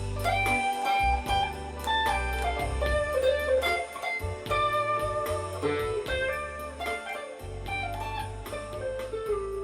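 Guitar improvising a blues-style lead line, with held and bent notes, over a backing track with bass and a steady beat.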